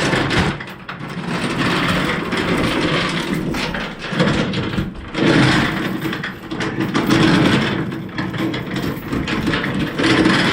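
Steel tie-down chains rattling and clanking as they are handled and pulled out, knotted up. The noise is loud and dense, swelling and easing every second or two.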